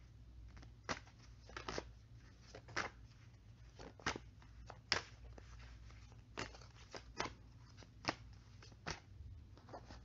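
About a dozen small, sharp clicks and crackles at irregular intervals, over a faint steady low hum.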